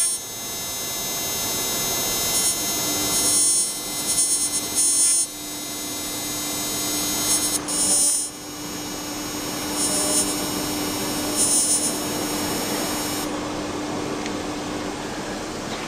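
Spark probe of a PMI-MASTER Pro mobile optical emission spectrometer buzzing steadily as it sparks on a 6061 aluminium sample during a material-identification test, with short dips as it passes through its preburn and measuring stages. The sparking stops about two seconds before the end, and a lower steady hum carries on.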